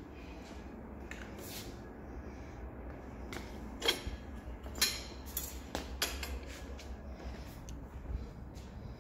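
Metal clicks and clanks from a homemade tug's folding steel handle, made from a lawnmower handle, as it is swung back out on its pivots. A few sharp knocks come in the middle, the loudest about four and five seconds in.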